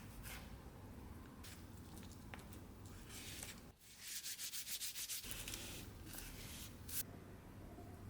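Hand sanding: short scrapes, then a quick run of fast back-and-forth strokes, about ten a second, for just over a second in the middle.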